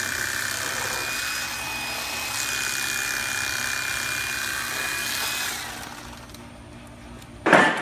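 Electric fillet knife running steadily with a high whine as it cuts through fish, the whine dropping away about five and a half seconds in. A sharp, loud bang near the end.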